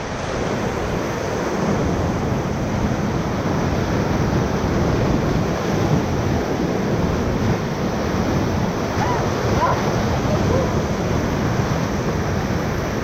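Whitewater rapids rushing and splashing around a raft, a steady loud rush of river water, with wind on the microphone.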